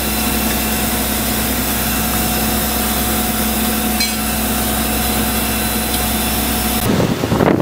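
A fishing boat's engine running steadily, a constant hum with a faint whine above it. Near the end it cuts off abruptly, giving way to wind buffeting the microphone over open water.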